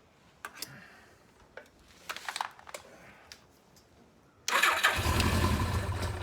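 Electric starter cranking a 1983 Suzuki GS1100GK's inline-four engine for about two seconds, beginning about four and a half seconds in, without the engine catching.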